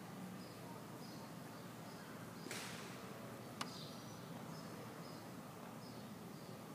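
Faint outdoor ambience with short high chirps repeating about twice a second. A brief hiss comes about two and a half seconds in, then a single sharp click a second later.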